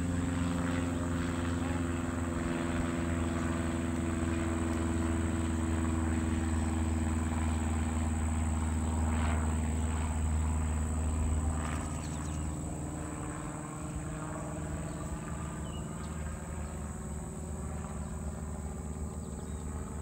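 A low, steady engine drone that fades away about twelve seconds in, over a constant high insect trill.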